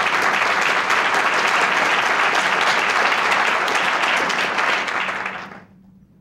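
An auditorium audience applauding steadily, then dying away about five and a half seconds in.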